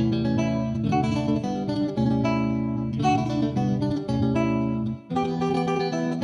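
Background music led by plucked guitar, with a steady run of notes and a brief break about five seconds in.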